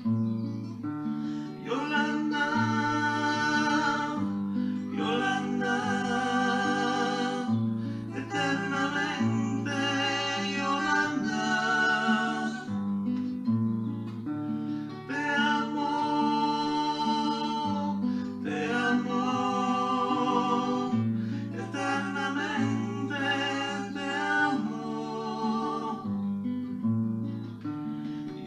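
Nylon-string classical guitar played as accompaniment, with voices singing a slow ballad over it.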